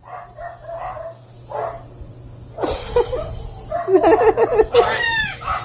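A person imitating a snake: a hiss starting sharply about two and a half seconds in, followed by quick voiced sounds and falling squeals.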